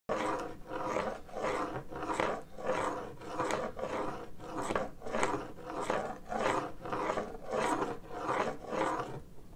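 Folding Ambutech white cane with a standard (non-rolling) marshmallow tip sliding side to side across a hardwood floor. Each sweep makes a rasping swish, about one and a half sweeps a second.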